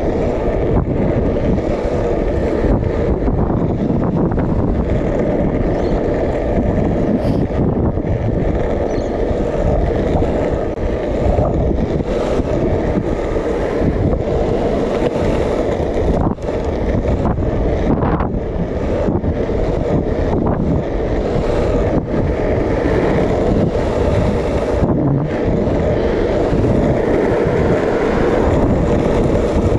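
Skateboard wheels rolling steadily over smooth asphalt, a continuous low rumble with occasional light knocks, mixed with wind buffeting the microphone.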